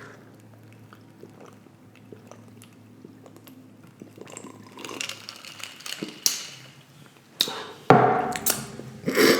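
Close-miked eating: chewing and crunching of tortilla-chip nachos, with soft mouth clicks at first and crisper crunches in the second half. A louder burst with a short voice-like hum comes near the end.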